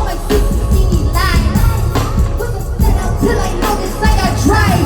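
Live concert music played loud over a heavy bass beat, with a voice singing over it.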